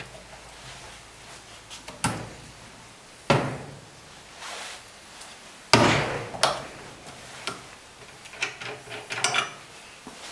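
Steel parts of a common rail injector clamping device being adjusted and clamped by hand: a string of sharp metallic knocks and clicks, the loudest about six seconds in, with lighter clicks near the end.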